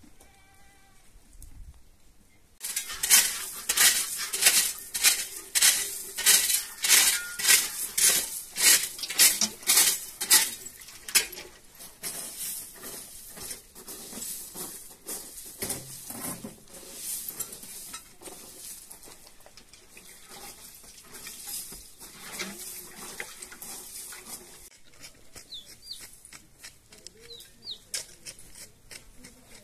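Utensil scraping and clattering against a pot or bowl in a rhythmic run of about two strokes a second for several seconds, then softer, irregular scraping and clinking.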